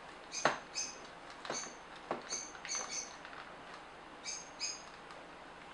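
Plastic housing of a Nikon SB900 flash being pried apart by hand: a few sharp clicks and snaps of its clips, the loudest about half a second in. Short high chirps repeat throughout.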